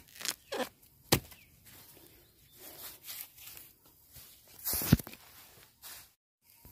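Bamboo shoots being snapped off by hand amid rustling of dry bamboo leaves: a few sharp cracks, the loudest about five seconds in, with brushing and rustling between them.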